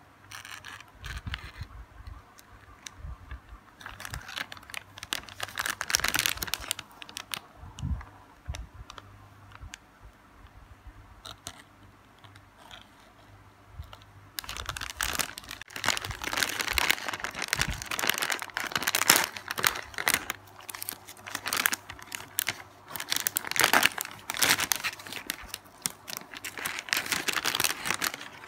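Plastic food wrapper crinkling under gloved hands: scattered crackles at first, then from about halfway through a dense, louder crinkling as the wrapper is pulled open.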